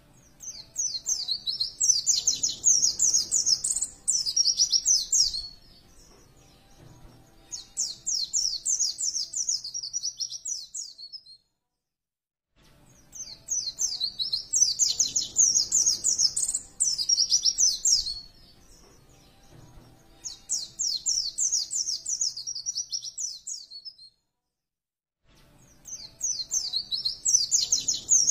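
White-eye (pleci) singing in repeated bursts of rapid, high chirping twitters: about five phrases of three to four seconds each, separated by short pauses.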